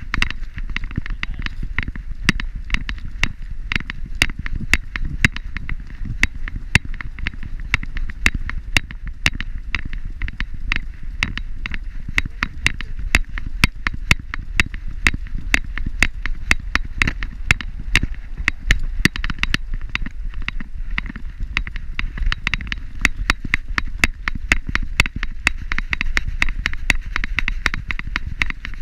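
A walking dog's metal leash clip and harness hardware clinking, several sharp clicks a second in time with its steps, over a steady low rumble from the harness-mounted camera jostling.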